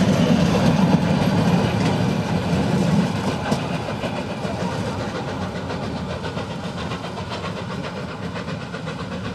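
Narrow-gauge steam train's carriages rolling past and away, the wheels clacking over the rail joints. The sound fades steadily as the train pulls off.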